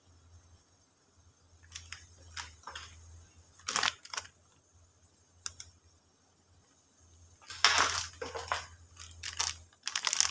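Plastic spice sachets crinkling and crackling in the hands as they are handled, in irregular short bursts that bunch together about eight seconds in and again near the end, over a low steady hum.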